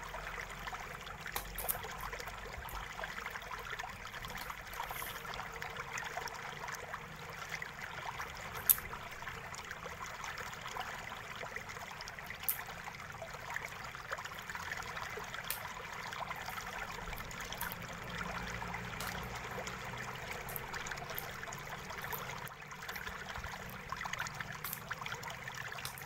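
Steady hiss with scattered light clicks and taps of a screwdriver working the battery screws inside a Huawei MateBook D15 laptop, and one sharper tick about nine seconds in.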